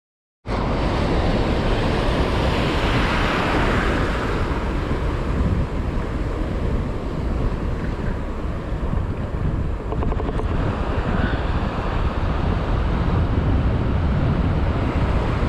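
Sea waves washing against rocks, with wind buffeting the microphone; it starts suddenly about half a second in and runs steadily.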